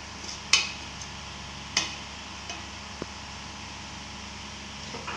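Metal spoon working cooked rice in a steel pot, with a few sharp clinks of spoon on steel, the loudest about half a second and just under two seconds in, over a steady low hum.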